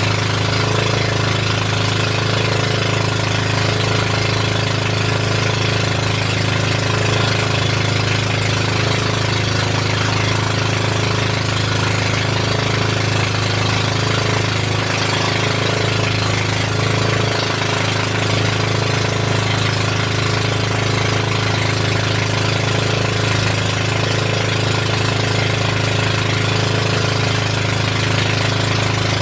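Boat engine running steadily at an even pitch, with a rough, rapid beat.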